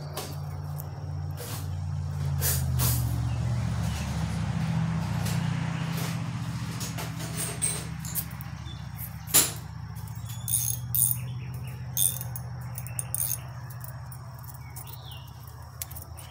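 A low engine hum that swells and then slowly eases, with a few sharp clicks partway through, the loudest a single knock, and a faint bird chirp near the end.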